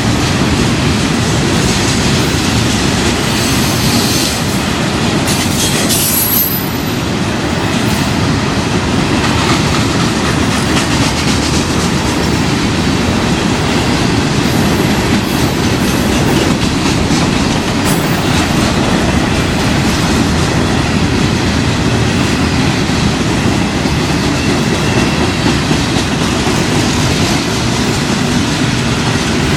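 CSX train's cars rolling steadily past on the track, a continuous loud rumble of wheels on rail, with brief high-pitched wheel squeals a few seconds in and again midway.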